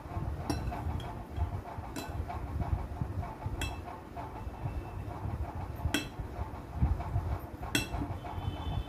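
Metal spoon clinking against a bowl about five times while ladling curry gravy, each clink briefly ringing, over a steady low rumble.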